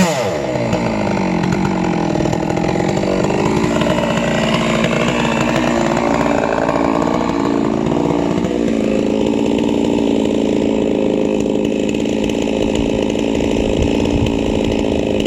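Two-stroke chainsaw on a chainsaw mill dropping sharply from full revs as it comes out of the cut, then running on at a lower, steady speed after the milling pass.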